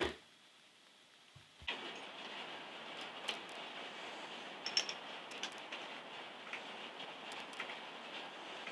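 Scattered light clicks and ticks as hands fit a bit into the chuck of a corded Makita drill and tighten it, irregular, over a steady hiss. The first second and a half is near silence.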